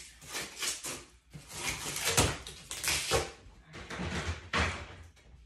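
Handling noise from unpacking: irregular rustles and knocks as pieces are moved about, with a sharp knock about two seconds in.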